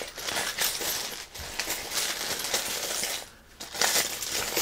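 A handful of small casting charms being shaken together, a dense clinking rattle that stops briefly about three seconds in.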